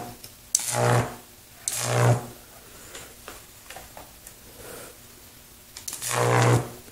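High-voltage arc from an unballasted microwave oven transformer, buzzing loudly three times as it is struck and drawn out: about half a second in, near the two-second mark, and near the end. Each arc pulls the transformer's current up to about 15 amps.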